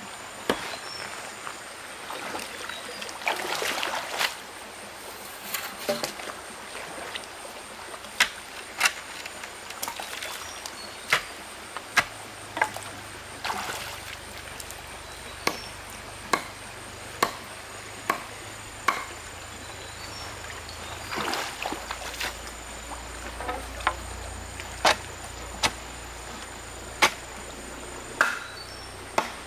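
Repeated sharp knocks of a tool striking wood, irregular, about one a second, with a few brief rustling scrapes in between.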